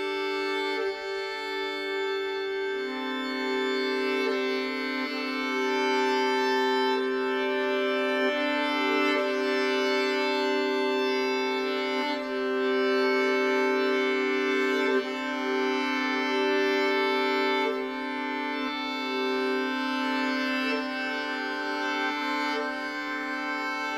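Violin and viola bowing long sustained drone notes together. The overlapping pitches hold for several seconds at a time and change now and then, with a new low note entering about three seconds in.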